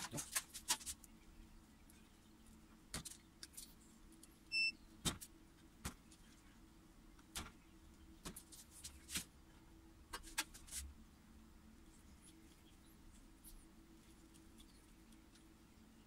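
Scattered sharp clicks and snips of a small hand tool and wires as 12-volt hookup wires are stripped and twisted together. A short high beep comes about four and a half seconds in. A faint steady hum runs underneath.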